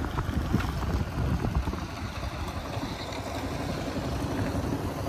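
Wind buffeting the microphone: a loud, uneven rumbling rush with no engine note in it.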